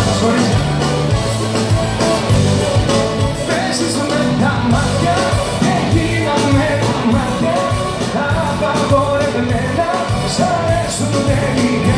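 Live band playing a Greek pop song loudly, with electric guitars, keyboard and drums, and a male voice singing over it.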